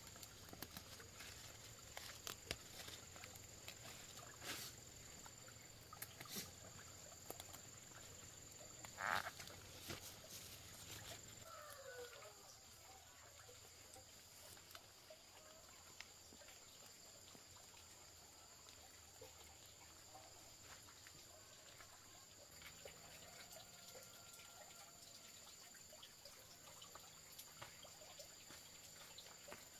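Near silence: faint outdoor ambience with two steady high-pitched tones, scattered small clicks and one short louder sound about nine seconds in.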